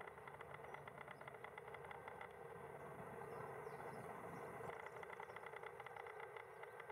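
Faint sound of a UH-60 Black Hawk helicopter flying past: a rapid, even beat of the main rotor blades over the steady hum of its twin turbine engines.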